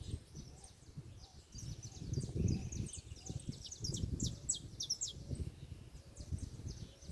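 Birds chirping: a quick run of short, high, falling notes, busiest a couple of seconds in, over a low gusty rumble.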